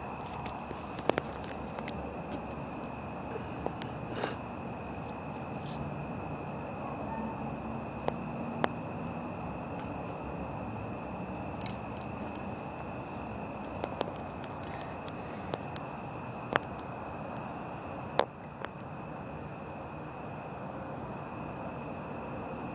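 Crickets trilling steadily at a high pitch over a low hiss, with a dozen or so sharp clicks scattered through.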